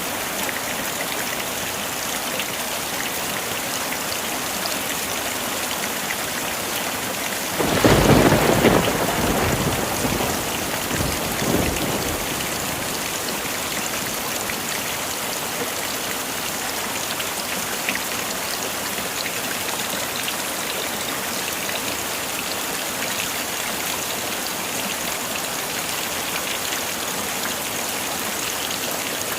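Heavy rain falling steadily, with one loud thunderclap about a quarter of the way in that rolls on as a rumble for a few seconds before fading back into the rain.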